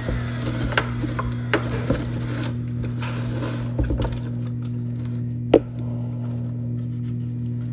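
ULV fogger sprayer's motor running with a steady hum, while its plastic tank and hose are handled with scattered clicks and knocks; a sharper knock comes about five and a half seconds in.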